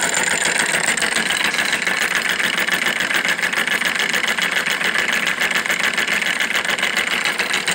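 Homemade solenoid engine running steadily on 120 volts DC, the solenoid pulling the piston rod to spin the flywheel, with a rapid, even clatter.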